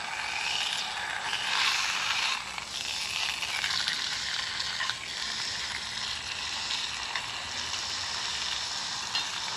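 Slices of country ham sizzling in oil in a skillet over a burning wood stove, a steady hiss that swells a couple of times as tongs turn the meat.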